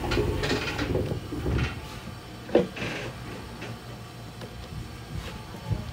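Irregular mechanical clicks and knocks inside the cab of a commuter train standing still, over a low steady hum, with the loudest knock a little before halfway.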